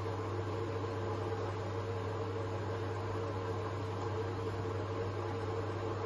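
Hoover H-Wash 500 front-loading washing machine running a colour cycle, its drum turning the laundry: a steady hum with a low drone and a fainter mid-pitched tone, even throughout.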